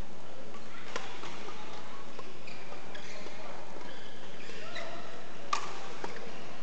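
Badminton rally: a few sharp racket strikes on the shuttlecock, the loudest about five and a half seconds in, with brief shoe squeaks on the court floor over the steady noise of a busy badminton hall.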